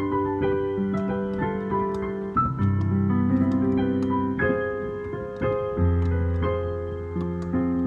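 Piano music: sustained chords over deep bass notes that change every couple of seconds, with single notes struck on top.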